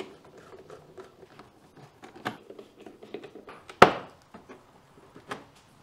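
Small plastic clicks and scraping as a screwdriver works the plastic screws out of an R50 MINI Cooper's front wheel-arch liner, with one sharper click a little under four seconds in.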